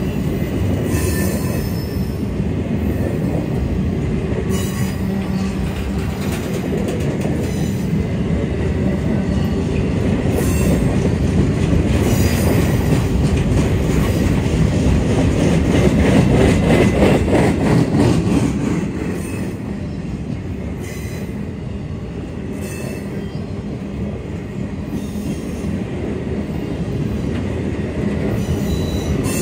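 Empty CSX rail train cars rolling past on steel wheels, a steady clattering rumble with intermittent wheel squeal. It swells to its loudest a little past the middle and then eases off.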